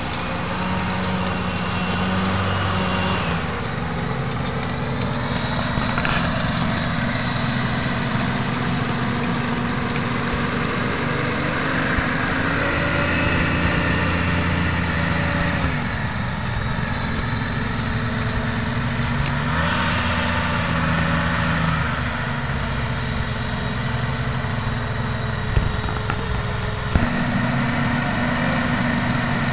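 Hovercraft engine and fan running on the water, a steady buzz whose speed rises and falls several times. Two short clicks come near the end.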